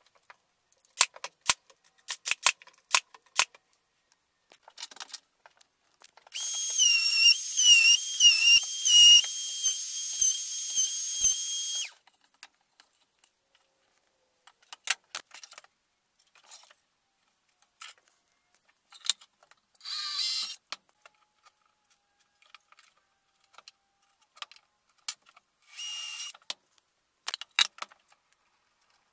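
Small wooden pieces clicking and tapping, then a small power tool runs for about six seconds with a high whine. The whine dips in pitch about four times as it is loaded, then holds steady before stopping. Two short bursts of noise follow later.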